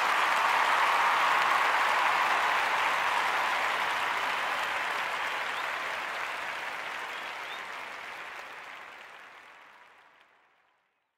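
Applause, an even wash of clapping that is loudest at first and then slowly fades out over about ten seconds.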